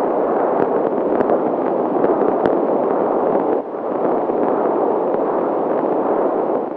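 BabyBeat fetal Doppler picking up the mother's venous blood flow: a continuous rushing noise. It drops briefly about three and a half seconds in, and there are a few faint clicks in the first couple of seconds. This venous sound varies with things like breathing.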